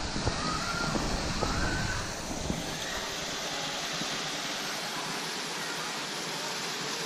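Waterfall rushing: a steady, even hiss of falling water. A low rumble underneath fades out about two seconds in.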